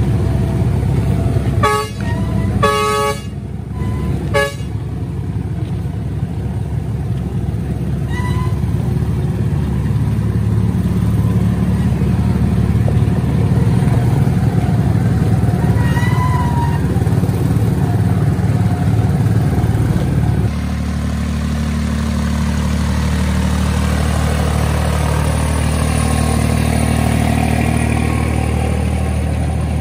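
Tractor engine running steadily, with several short vehicle-horn toots a couple of seconds in. About twenty seconds in, the engine note changes and settles into a steadier, slightly quieter run.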